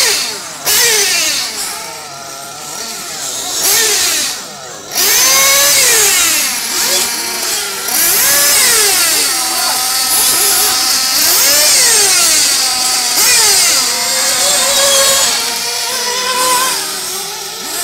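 Several electric RC off-road cars running laps, their motors whining up and down in pitch as they accelerate and brake, with many whines overlapping and a steady high hiss behind them.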